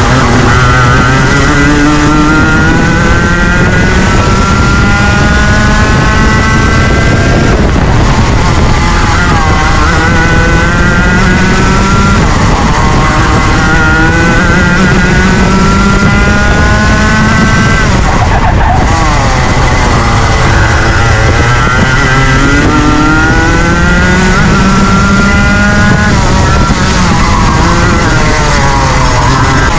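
Junior Rotax 125cc two-stroke kart engine racing, its pitch climbing steadily along each straight and falling away sharply into each corner, several times over.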